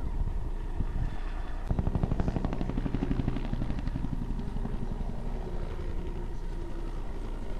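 Helicopter rotor beating with a fast, even thudding that swells about two seconds in and then eases a little, over a steady low rumble.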